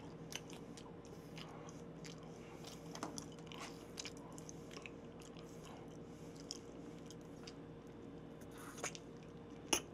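Faint mouth sounds of a person eating raw shrimp sashimi: soft chewing and lip smacks with scattered small clicks, over a steady low hum.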